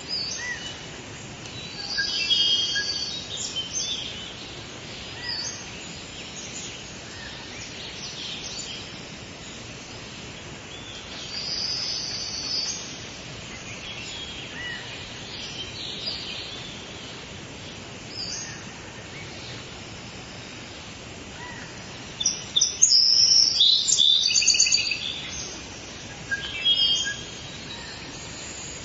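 Tropical rainforest ambience: many birds calling and chirping at intervals over a steady background hiss, with the loudest burst of rapid, repeated calls a little past two-thirds of the way through.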